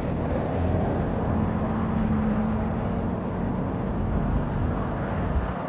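City street noise with motor traffic: a steady low rumble of vehicles, with an engine hum rising out of it for a couple of seconds near the middle.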